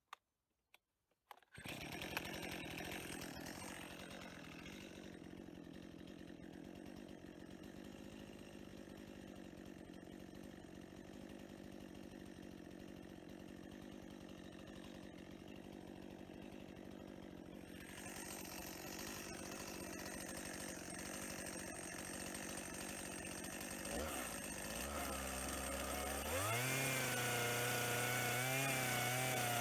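Chainsaw running steadily at low speed, then revved up near the end with a rising pitch as it goes into the cut through a cedar log.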